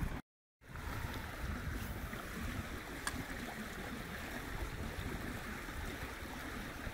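Steady rush of flowing stream water, cut off briefly by a short dropout to silence just after the start, with a faint tick about three seconds in.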